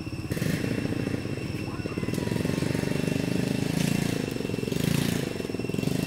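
A small engine running steadily with a rapid, even pulse, getting louder about a third of a second in.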